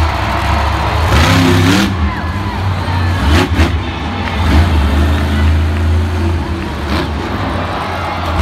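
Monster truck's supercharged V8 engine revving hard with a deep rumble, surging up in pitch several times and held high for a couple of seconds in the middle.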